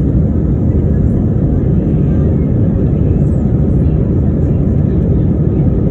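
Airbus A320ceo cabin noise during the climb after take-off: a steady, low rumble of the jet engines and rushing air, heard from inside the cabin by the wing.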